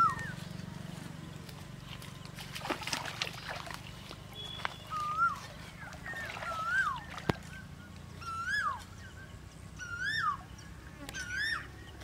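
A bird calling over and over, each call a short whistled note that rises then falls, coming more often in the second half. A few sharp clicks sound in between.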